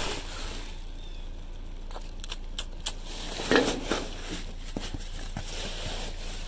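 Rustling with scattered light clicks and knocks of trash and packaging being handled in a dumpster, with one louder bump about three and a half seconds in.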